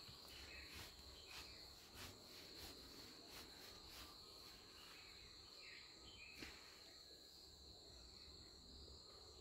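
Near silence: faint room tone with a steady high-pitched whine and a few faint clicks.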